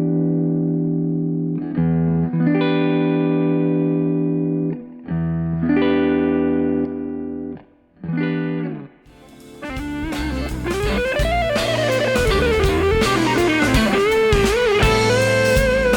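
Electric guitar played through a compressor pedal: long, evenly sustained chords ring out three times. About nine seconds in, a drum backing track starts and the guitar switches to a lead line with string bends and vibrato.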